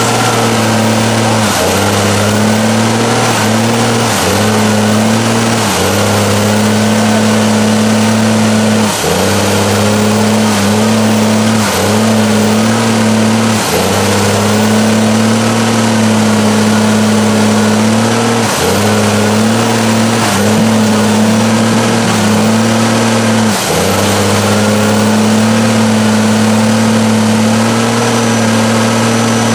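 Diesel engine of a lifted Dodge Ram mega mud truck held at high revs under full load in a mud bog. The revs drop briefly and climb straight back again and again, with the dips coming closer together in the first half.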